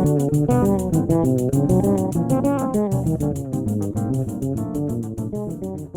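Music with guitar and bass guitar playing fast plucked notes over a steady ticking beat, beginning to fade out near the end.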